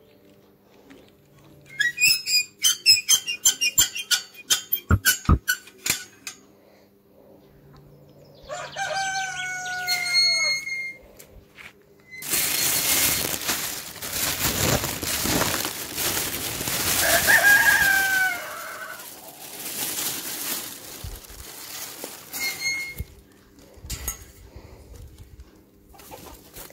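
Chickens calling in a quick run of clucks, a rooster crowing about nine seconds in, then a plastic bag rustling loudly for several seconds as greens are shaken out into the chicken run.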